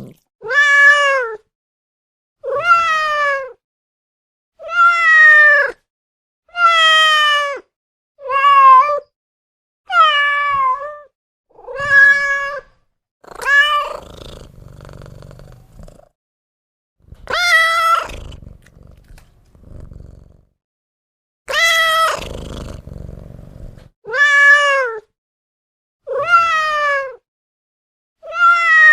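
Domestic cat meowing over and over: about thirteen separate meows of roughly a second each, every one rising then falling in pitch, spaced about two seconds apart. A quieter low rumbling fills a couple of the gaps.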